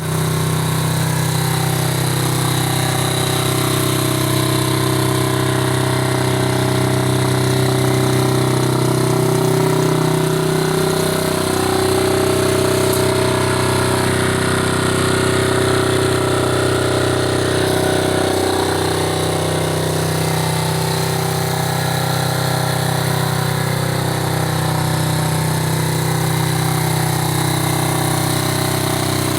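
50cc pit bike engine running steadily at a low, even speed, with small wavers in pitch about ten seconds in and again around twenty seconds.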